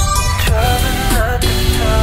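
Background pop music with a sung melody over guitar and a steady beat.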